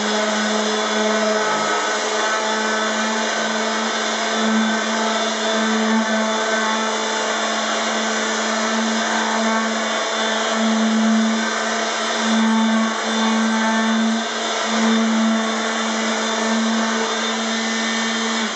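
Electric random-orbit palm sander running steadily, with small swells in level as it is worked over the panel, wet-sanding a polyurethane finish with 500-grit wet/dry paper and paint thinner to cut it down to a satin sheen.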